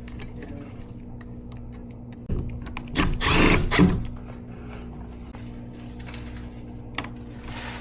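Cordless drill running in a short burst, speeding up and slowing down, a little over two seconds in, over a steady low hum, with a few light clicks.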